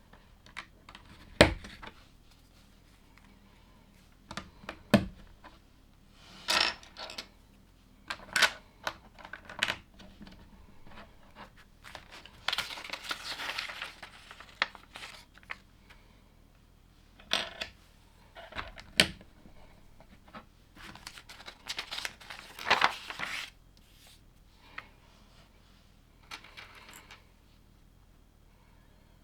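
Plastic LEGO pieces clicking and clattering as they are handled and pressed together, with sharp clicks about 1.5, 5 and 19 seconds in, and two stretches of rustling around the middle and after 20 seconds.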